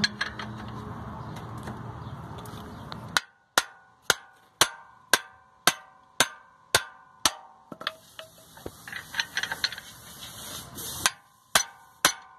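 Metal struck with a hammer at a steady pace, about two blows a second, each ringing briefly, with a hiss under the blows for a few seconds near the end. Before the blows, a steady rumbling noise stops suddenly about three seconds in.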